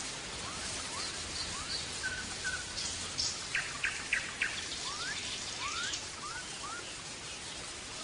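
European goldfinch of the large 'major' type singing in scattered phrases: short upward-sliding whistles, with a run of four quick sharp notes a little past the middle, over a steady background hiss.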